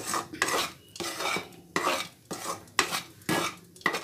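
Metal ladle stirring and scraping thick gram-flour and sugar-syrup batter around a metal kadai, in quick repeated strokes about two to three a second.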